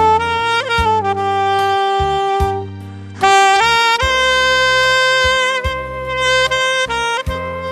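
Saxophone playing a slow melody in long held notes over a recorded backing track with bass and a steady beat; the melody pauses briefly about three seconds in, then comes back a step higher.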